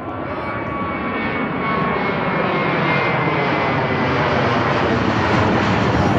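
Jet airliner's engines running at high power as it departs, a loud rushing roar that grows steadily louder.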